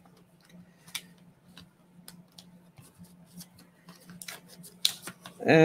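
Soft scattered clicks and taps of a cardboard postcard box and paper insert being handled and fitted into a slipcase, over a faint steady hum. A man's drawn-out voice starts right at the end.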